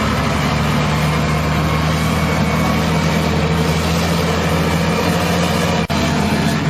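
Wheel loader's diesel engine running steadily at an even speed, cutting out for an instant about six seconds in.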